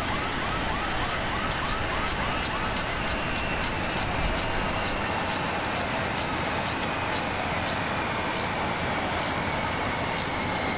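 Ramp noise beside a parked Airbus A380: a steady jet whine that slowly sinks in pitch over a broad rush of noise, with a repeated chirping, quick at first and then slower, and a faint regular ticking.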